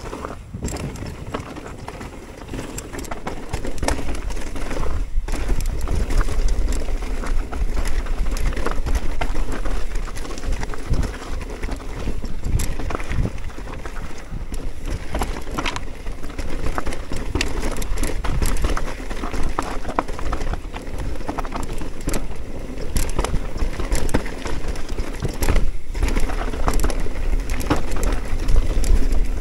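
Mountain bike descending rough rocky singletrack: tyres rolling and crunching over stones with the frame and parts rattling, in a steady run of clicks and knocks, over a low rumble of wind on the microphone. It grows louder about four seconds in.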